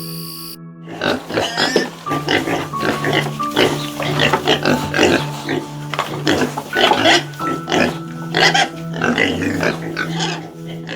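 An animal calling over and over in quick, harsh, noisy calls, with steady background music underneath.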